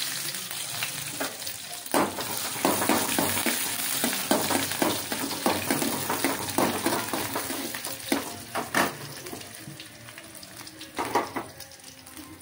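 Chopped onion and green chilli sizzling in hot oil in an aluminium kadai, with a steel ladle scraping and knocking against the pan as they are stirred. Many quick scrapes come in the middle stretch and one more near the end, while the sizzle slowly dies down.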